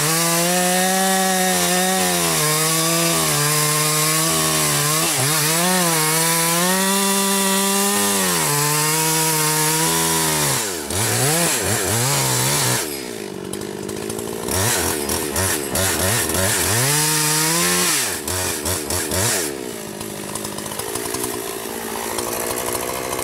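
Two-stroke chainsaw running at full throttle in a cut, its pitch sagging a little under load. About ten seconds in the revs drop and climb again several times. It then falls to a quieter, rougher sound for the last few seconds.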